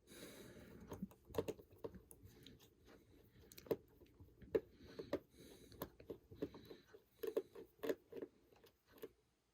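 Faint, irregular clicks and light taps of small repair tools working inside an opened iPhone 6.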